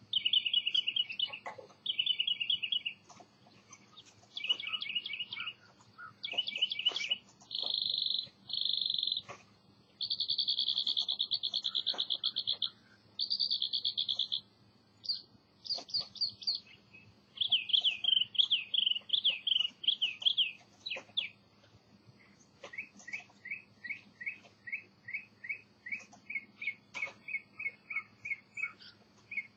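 A songbird singing a long run of varied phrases: rapid trills, buzzy runs and slurred notes, each phrase a second or two long with short pauses between. Near the end it gives a string of quick repeated notes, about four a second. A faint steady high hum runs underneath.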